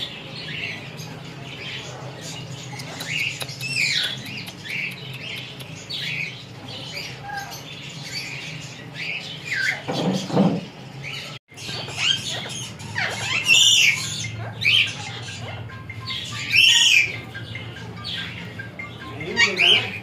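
Parrots squawking and calling in short, sharp, pitch-sliding calls, the loudest ones in the second half, over a steady low hum.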